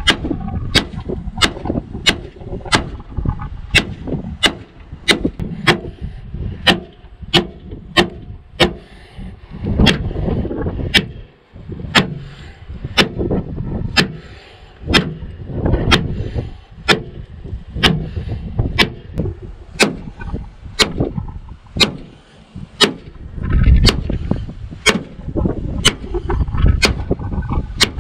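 Cold Steel SR1 tanto-point folding knife stabbed again and again into a car's sheet-steel hood: sharp metallic punches in a steady rhythm, a little under two a second.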